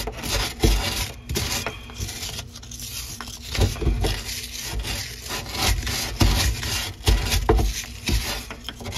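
A flat wooden stick scraping and rubbing around the inside threads of a drain pipe fitting, clearing out debris, in irregular strokes with a few dull bumps.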